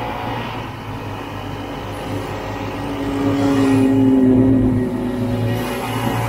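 Snowmobile engine running, its note rising and getting louder about three seconds in as it speeds up, then easing back a second or two later.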